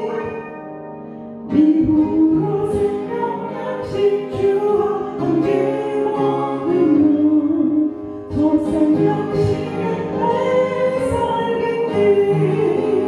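A woman singing a Korean hymn into a microphone with upright piano accompaniment. The piano carries on alone for the first second and a half, then her voice comes back in and holds long notes to the end.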